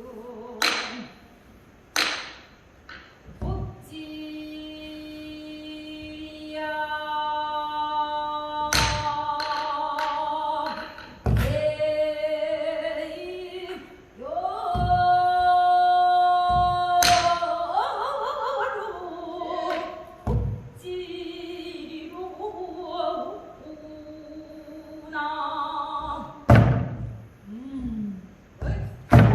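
A female pansori singer holding long sung notes that bend and slide in pitch, accompanied by a buk barrel drum struck sharply every few seconds at irregular intervals.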